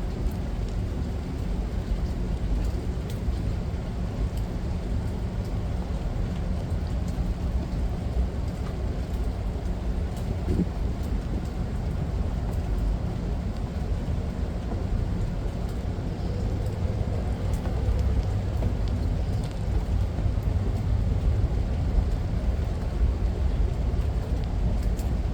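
Steady rain: an even, low-heavy rushing noise with occasional faint ticks of drops.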